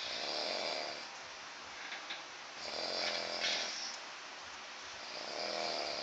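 A man snoring in slow, regular breaths, three snores about two and a half seconds apart, sounding like a herd of animals.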